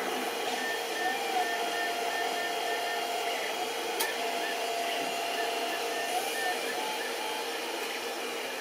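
FDM 3D printer at work: its stepper motors whine in steady tones that glide up and down and break off as the print head traces circular perimeters, over a steady hiss. One sharp click about four seconds in.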